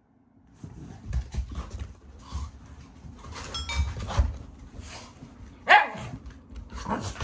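Black Shiba Inu growling in uneven bursts, amid short clicks and scuffles, with one loud bark near six seconds in.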